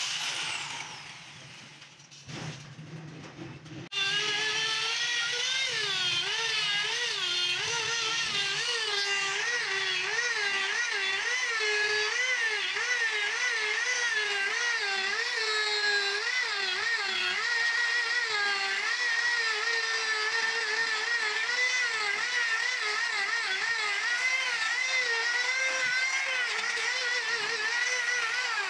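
Handheld electric angle grinder with a buffing wheel polishing stainless steel railing pipe. The motor runs with a high whine whose pitch wavers up and down as the wheel is pressed and moved along the pipe. It winds down near the start, is back at full speed about four seconds in, and winds down again at the very end.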